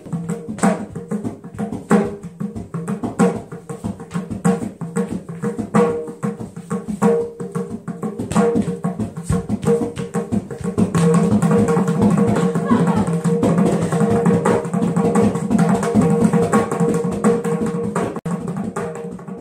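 Indian dance music: a steady drone under the strokes of a hand-played double-headed barrel drum. About eleven seconds in, the music grows denser and louder.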